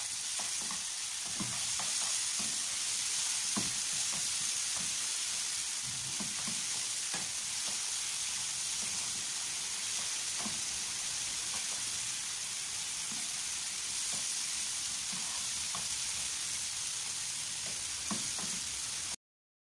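A tomato and carrot mixture sizzling in a frying pan as it cooks down: a steady hiss dotted with small pops and crackles. It cuts off abruptly near the end.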